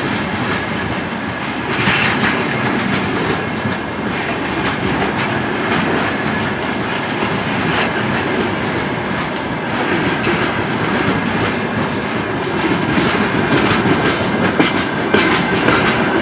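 Freight train of open-top gondola wagons rolling past: a steady rumble of wheels on rail, with clacks as the wheels cross rail joints and a faint steady high whine underneath.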